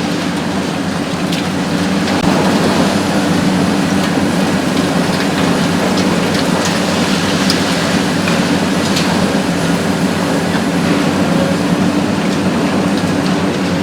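Hitachi ZX 870-3 XXL long-front demolition excavator running steadily with a constant low engine hum, over a dense crackle of crumbling concrete rubble and scattered sharp cracks.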